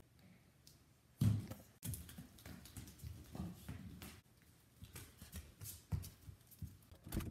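Irregular soft thumps and rustling of someone dancing and spinning: footfalls, clothing movement and handling noise on the phone's microphone, with a louder thump about a second in and another near the end.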